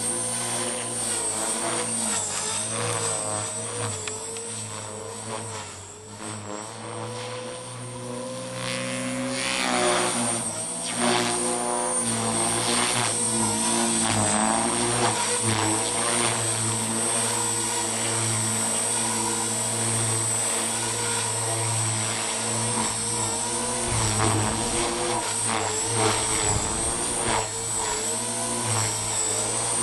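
Align T-Rex 450 SE electric RC helicopter in flight: the Scorpion brushless motor and Edge main rotor blades whine and whir, their pitch rising and falling as it manoeuvres. It dips briefly and grows louder about a third of the way in.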